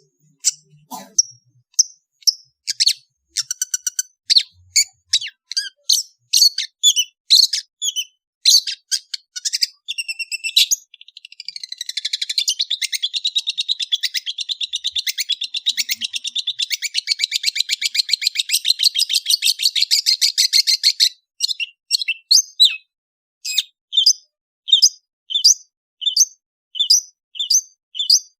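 Long-tailed shrike (cendet) singing: a string of sharp, high chirps, then a fast, unbroken trill of about ten seconds, then evenly spaced chirps again, about two a second.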